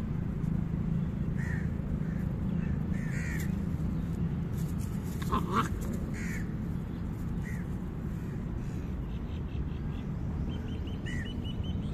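Short animal calls every second or two over a steady low outdoor rumble, the loudest a little past the middle, with a quick run of high chirps near the end.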